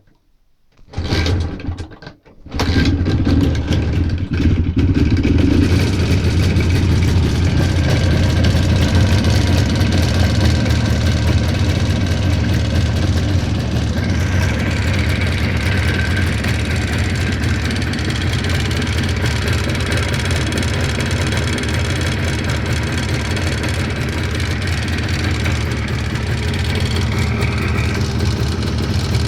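Jawa 638 two-stroke twin motorcycle engine starting about a second in, faltering for a moment, then catching and running steadily at idle. It has a knock that the owner cannot identify.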